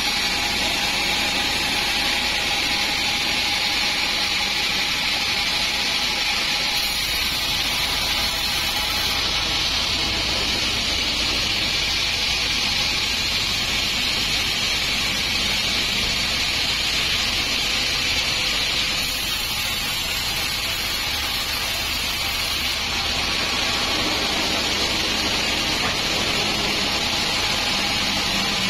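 Sawmill band saw running steadily as its blade rips lengthwise through a teak log: a continuous high-pitched hiss of the cut over the machine's drive.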